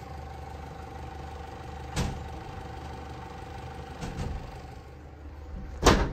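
A steady mechanical hum with two held tones, broken by a few short knocks, the loudest one near the end.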